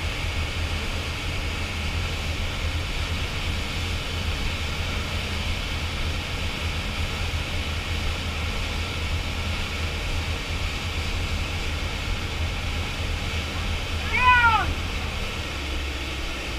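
A yacht under way: steady engine rumble under the rush of its churning wake, which carries the wakesurfers. About fourteen seconds in, a short high cry rises and then falls over it.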